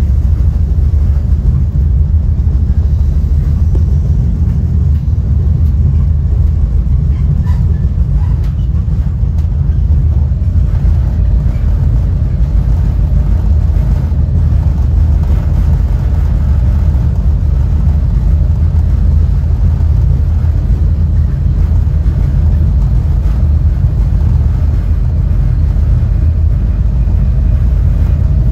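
Steady low rumble of a moving Caltrain Gallery bilevel passenger car heard from inside the coach, the wheels running on the rails.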